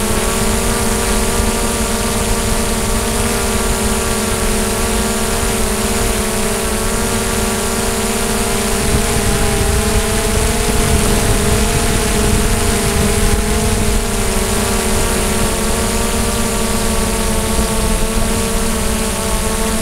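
DJI Mavic drone's motors and propellers whining steadily in flight, a pitched hum that wavers slightly up and down over a constant hiss.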